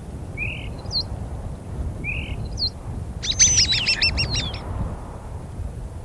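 Common starlings calling: two short chirps, then about three seconds in a quick run of rapid repeated notes with a falling whistle through it. A low steady rumble runs underneath.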